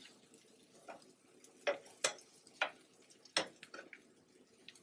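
Flat metal spatula tapping and scraping on a griddle while thin tomato slices are slid under and flipped: a handful of separate sharp clicks.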